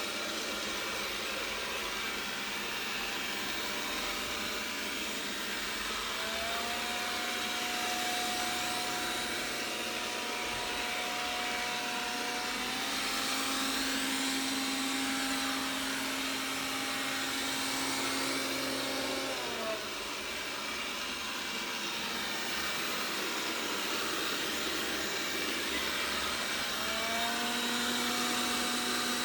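Roborock S6 robot vacuum running with a steady suction-fan hiss, overlaid by a buzzing tone that comes in about six seconds in, cuts out about twenty seconds in, and returns near the end.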